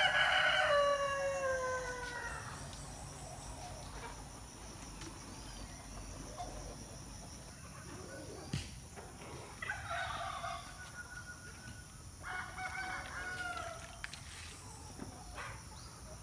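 A rooster crowing at the start, one long call that falls in pitch at its end, followed later by two shorter chicken calls. A single sharp knock comes about halfway through.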